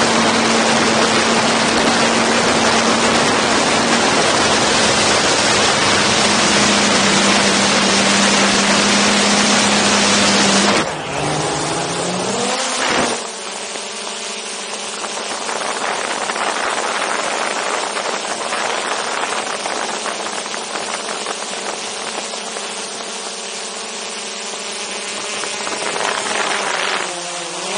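DJI Mavic 2 Zoom quadcopter's motors and propellers heard from just beneath it: a loud steady hum under a rushing hiss. About eleven seconds in it drops in level, and the motor pitch glides up and shifts as the thrust changes. It then settles into a quieter, steady, many-toned hum, with another pitch shift near the end.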